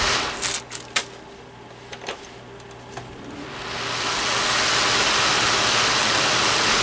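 A few sharp clicks over a low steady hum, then a small shaded-pole fan motor (an Endurance Pro replacement motor) spins up with a rising rush of air and settles into a steady airy whoosh. It is running in its newly reversed direction, and it works.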